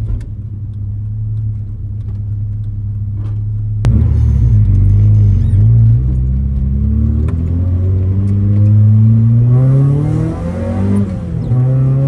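1990 Mazda Miata's 1.6-litre four-cylinder engine heard from inside the cabin, running steadily at low revs at first. After a sharp click about four seconds in, the revs climb in steps and then rise in one long pull, drop briefly near the end at a gear change, and settle at a steady higher note.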